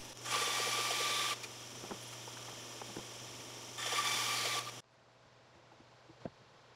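Grizzly bandsaw cutting notches into a thick knotty alder shelf: two short cuts, the first just after the start and the second about four seconds in, each a loud hiss over the steady hum of the running saw. The sound cuts off abruptly near the end, leaving near silence with one faint knock.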